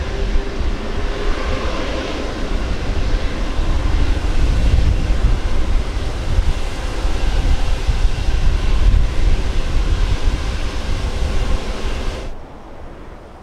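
Airbus A330 airliner landing close by: a jet engine whine fades over the first couple of seconds, then a deep, loud rumble builds and peaks midway. The sound drops away suddenly near the end.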